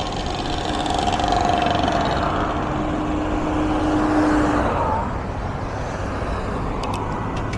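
Street traffic: a motor vehicle passes close by, its steady engine hum swelling and then dropping away about five seconds in.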